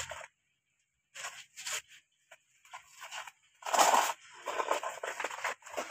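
A flat board scraping and pushing through loose sand in several short gritty strokes, the loudest about four seconds in.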